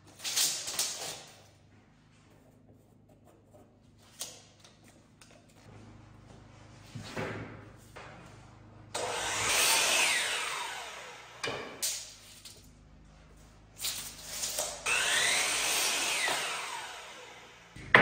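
DeWalt sliding compound miter saw making two cuts through wood trim, each a few seconds long, with the motor's whine falling away as the blade spins down. Short clatters of handling come before and between the cuts.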